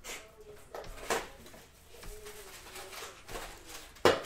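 A few sharp computer mouse clicks, the loudest near the end, as the randomizer's button is pressed again and again.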